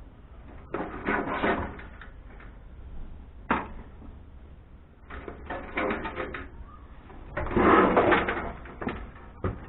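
Metal parts of a desktop computer case rattling and clattering as it is taken apart by hand, in several bursts with sharp clicks between them.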